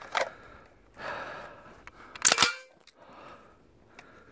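Metallic clacks from a Typhoon F12 12-gauge shotgun's action being handled while the gun is cleared: a light click near the start, then a sharp metal clack with a brief ring a little past two seconds in.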